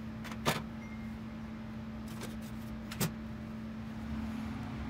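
Two sharp plastic clicks, about half a second in and again about three seconds in, as engine-bay plastic trim around the washer filler neck is handled, over a steady low hum.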